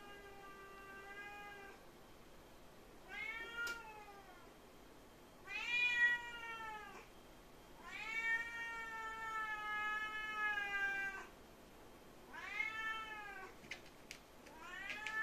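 Black-and-white cat meowing repeatedly: six drawn-out meows a second or two apart, the longest lasting about three seconds in the middle.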